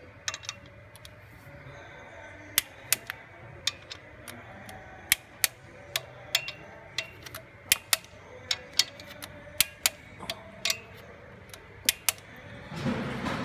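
Torque wrench clicking as the injector clamp bolts on a Toyota 1KD-FTV diesel head are tightened: sharp single clicks come irregularly, about one to three a second. A louder noise rises near the end.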